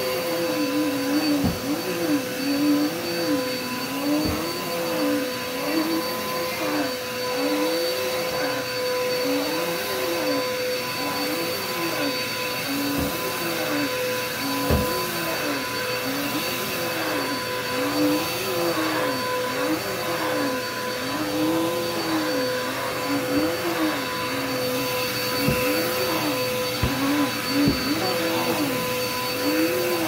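Red upright vacuum cleaner running on carpet: a steady motor whine, with a lower tone that rises and falls about every second and a half. A few sharp knocks come through now and then.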